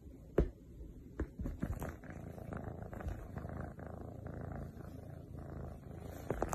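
A cat purring softly and steadily, with a few faint clicks in the first couple of seconds.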